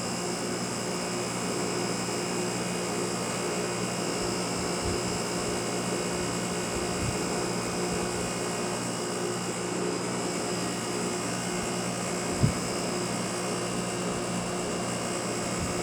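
Fedders 6,000 BTU window air conditioner running on cool, its compressor and fan going with a steady hum and a faint high whine over the rush of air. A single short knock about twelve seconds in.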